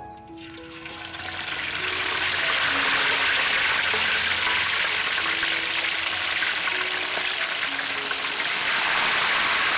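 Whole fish frying in hot oil in a steel wok: the oil sizzles, swelling over the first two seconds as the fish goes in, then holding loud and steady.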